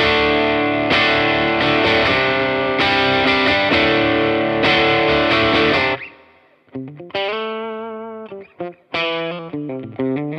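Electric guitar played through a Laney CUB-Super 12 (15 W all-tube combo, single 12-inch speaker) with its boost engaged: sustained strummed chords with crunchy overdrive. About six seconds in, the chords stop and give way to separate picked notes ringing out with less drive.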